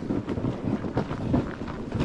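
Wind buffeting the microphone: an uneven, gusty rumble.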